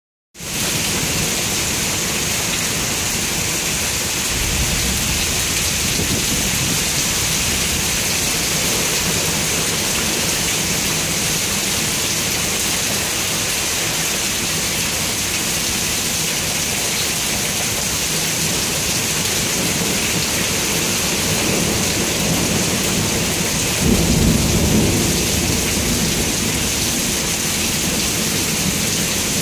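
Steady rain falling in a summer thunderstorm, with thunder rumbling twice: once about four seconds in, and louder about twenty-four seconds in.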